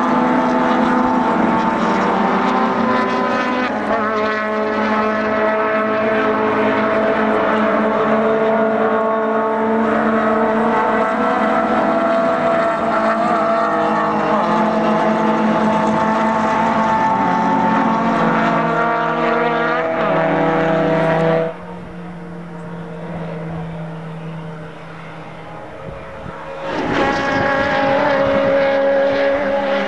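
Several circuit-racing cars' engines running hard at high revs, pitches rising and falling as the cars accelerate, shift and pass. About two-thirds of the way through the engine sound drops abruptly to a lower level for about five seconds, then comes back loud.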